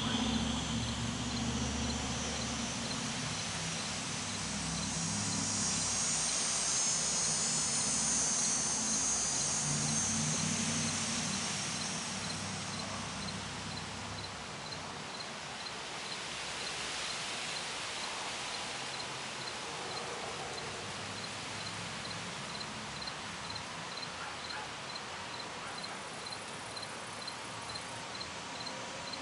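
Outdoor garden ambience of insects: a regular high chirp repeating evenly through the second half, and a high buzzing hiss in the first half. A low rumble fades by about the middle.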